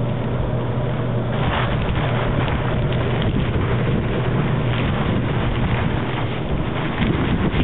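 Blizzard wind blowing hard and buffeting the microphone: a steady loud rush with a low rumble and gusts.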